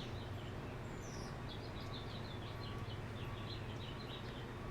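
Small birds chirping in woodland: many quick high chirps, with a faint short note repeating about every two-thirds of a second, over a steady low background noise.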